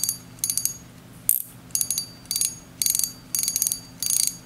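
Drag of an X3 size-1000 spinning reel clicking as the spool is turned against it, in short rattling bursts about twice a second.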